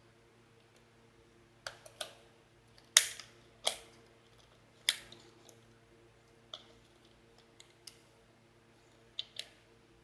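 Irregular sharp plastic clicks and knocks, about a dozen, from a toy RC helicopter and its remote control being handled. The loudest knock comes about three seconds in. A faint steady hum runs underneath.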